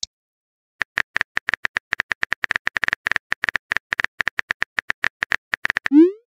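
Rapid, irregular phone-keyboard typing clicks from a texting-story app for about five seconds, then a short rising pop near the end as the message is sent.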